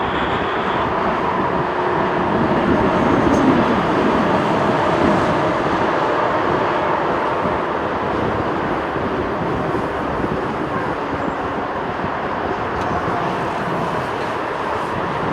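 Jet airliner passing low on landing approach: a steady, loud engine rumble and rush of air, swelling slightly a few seconds in.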